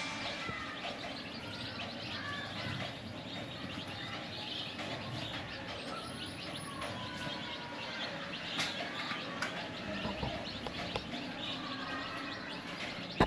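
A crowd of young chicks peeping continuously, many short overlapping chirps.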